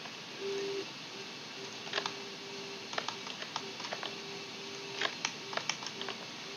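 Computer mouse and keyboard clicks while operating CAD software: about a dozen short, irregular clicks, some in quick pairs, over a faint hum that keeps breaking off and starting again.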